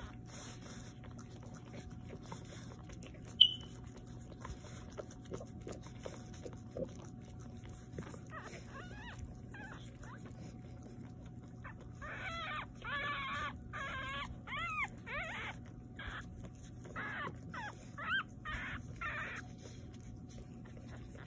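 French bulldog puppies squeaking and whimpering while nursing, in a run of short, wavering high-pitched calls from about twelve seconds in until near the end, over a steady low hum. A single sharp click about three seconds in.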